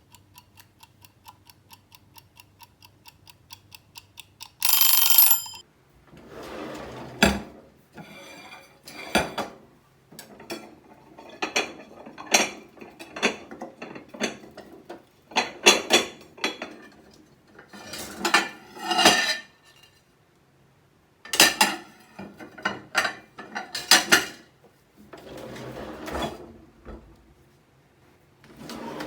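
A kitchen timer ticks fast and evenly, then its bell rings for about a second near five seconds in. After that comes a cupboard being opened and closed, with ceramic plates and bowls clattering and knocking as they are taken out and set down in repeated bursts.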